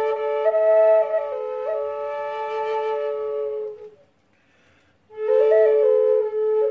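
Spalted beech drone flute, a Native American-style double flute in the key of A tuned to 432 Hz. A melody steps between notes on the fingered bore over a steady drone note from the second bore. The playing breaks off for about a second about four seconds in, then resumes.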